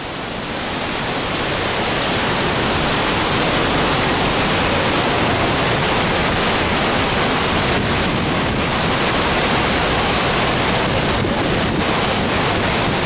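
Water released from a dam, huge jets from the outlets crashing into the river below: a loud, steady roar that swells over the first two seconds, with some wind on the microphone.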